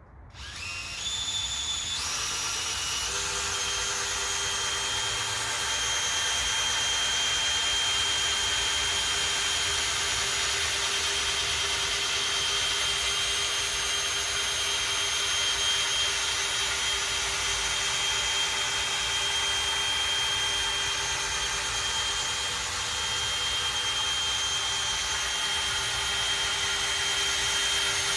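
Electric polishing tool spinning a pad against a plastic headlight lens. It speeds up in steps over the first three seconds, its whine climbing, then runs steadily at high speed.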